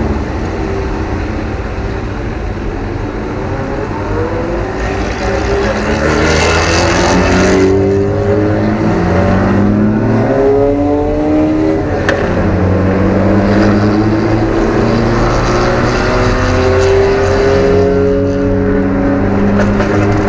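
Alfa Romeo 1750's twin-cam four-cylinder engine heard from inside the car under hard acceleration on track. The revs climb and drop back several times as it is shifted up through the gears.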